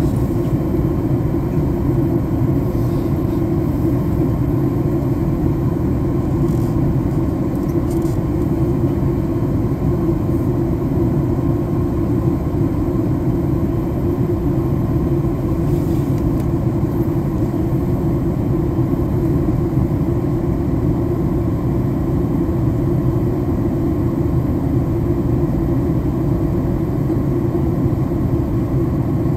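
Airliner cabin noise: a steady low rumble of jet engines and rushing air, heard from inside the passenger cabin.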